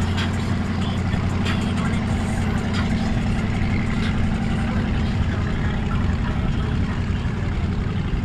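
Boat engine running at low speed with a steady low rumble.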